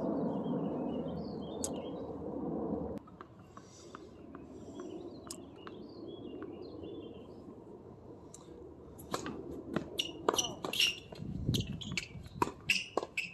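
Tennis balls being struck by rackets and bouncing on a hard court in a doubles rally: a quick run of sharp knocks from about nine seconds in. Before that, a low steady rumble stops suddenly about three seconds in, leaving birds chirping and a few light knocks.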